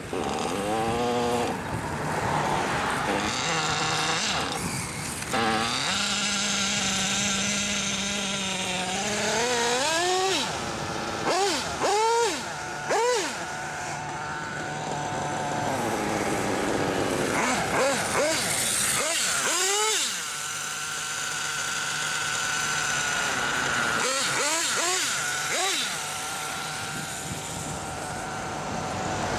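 Remote-control model superbike's motor whining in repeated sweeps, rising in pitch as it speeds up and falling away as it slows, with a few short bursts close together. A car drives past near the end.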